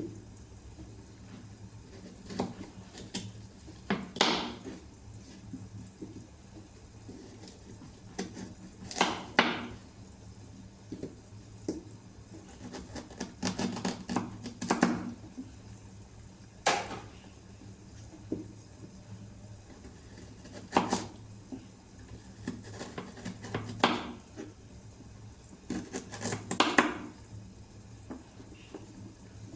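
Kitchen dishes and utensils clinking and clattering as food is prepared, in scattered knocks and clinks, some ringing briefly, with the loudest around the middle and near the end. A low steady hum runs beneath.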